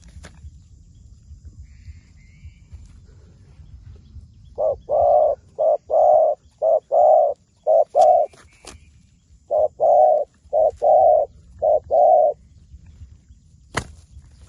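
A dove cooing in two phrases of short, repeated low coos, the first of about six notes and the second of about five after a brief pause. A sharp click follows near the end.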